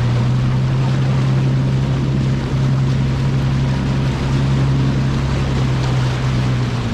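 Bass boat's outboard motor running steadily at speed, with wind and water rushing past.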